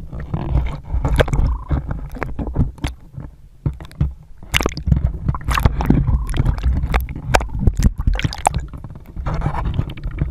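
Surface water sloshing and splashing against the camera at the waterline: a low, steady rumble broken by many short, sharp splashes.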